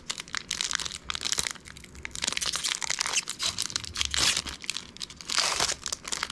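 Wrapper of a trading card pack being crinkled and torn open: a dense, irregular crackling rustle.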